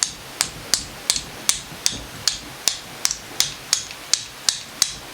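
Steady light hammer tapping on metal, about three sharp taps a second with a short ring after each, knocking the stuck cylinder of a 1979 Suzuki DS125 two-stroke engine loose from the crankcase.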